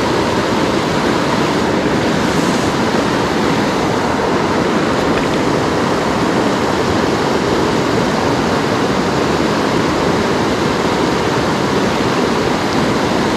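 Steady rush of a mountain river running high over rocks and a small drop into a plunge pool.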